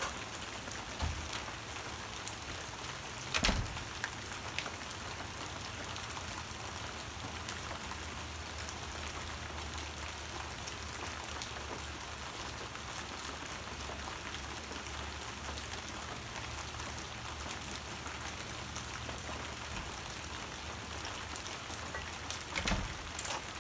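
Steady rain falling, an even hiss of drops, with a short knock about three and a half seconds in and another near the end.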